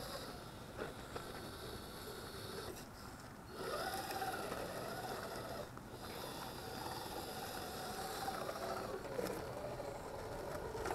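Electric motor and gear drivetrain of a scale RC crawler truck whining, the pitch rising and falling with the throttle and easing off briefly twice, with a few sharp clicks.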